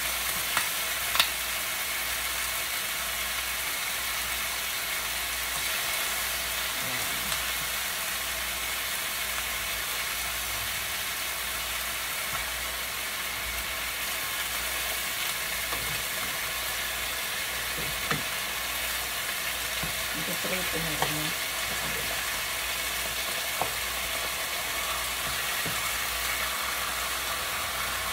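Food frying in hot oil in a pan: a steady sizzle, with a few sharp clicks scattered through it, the loudest about a second in.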